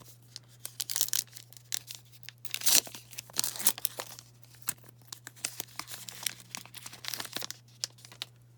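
A trading-card pack's wrapper being torn open and crinkled: irregular sharp crackles, loudest around three seconds in, thinning out near the end.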